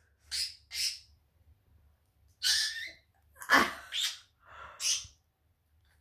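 Budgerigar imitating human sneezes: a series of about six short, sharp sneeze sounds with brief silences between them.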